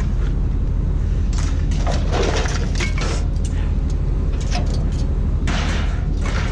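A steady low engine drone with irregular knocks and rattles over it, the loudest cluster about two to three seconds in.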